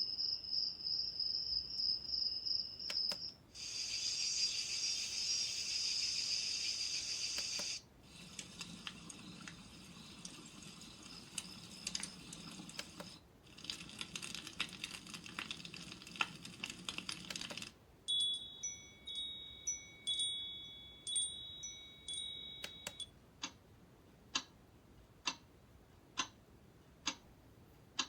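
LIORQUE sunrise alarm clock's built-in sleep sounds played through its small speaker, switched every few seconds. A high steady chirping gives way to a rushing noise that changes twice, then to tinkling chime-like tones, and near the end to single ticks about once a second.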